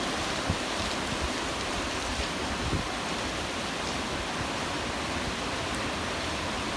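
Typhoon wind and rain: a steady rushing noise, with a couple of brief low thumps of wind hitting the microphone.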